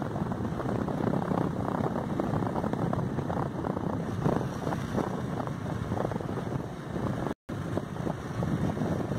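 Wind buffeting the microphone on a moving motorcycle, over the steady running of the Bajaj Avenger Street 220's single-cylinder engine and road noise. The sound cuts out for a moment about seven seconds in.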